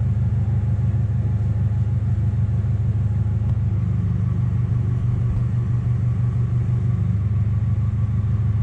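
A heavy engine running steadily with a deep rumble and a fast, even pulse, which smooths into a steadier drone about three and a half seconds in.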